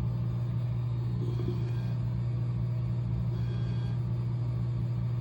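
A steady low hum with a rumble beneath it, unchanging in level.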